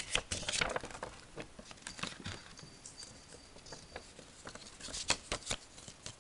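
Scattered light clicks, taps and rustles of cardboard and paper being handled, with a denser cluster of them about five seconds in.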